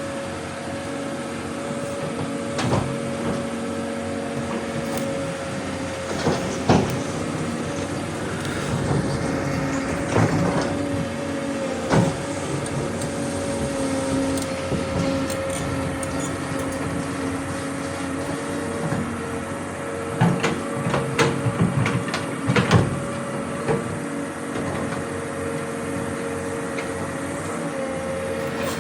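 Hydraulic excavator running with a steady whine while loading a dump truck. Sharp clanks and knocks of the bucket and dumped material come now and then, clustered near the end.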